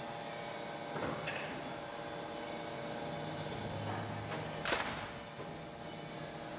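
Large power press cycling on a steel Classic Mini front grille panel, trimming surplus steel from around its edge: a steady machine hum with a knock about a second in and a sharp metallic bang, the loudest sound, a little past the middle.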